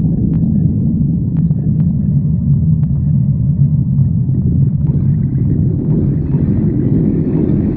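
A person's stomach growling: a continuous low rumble with a few faint clicks.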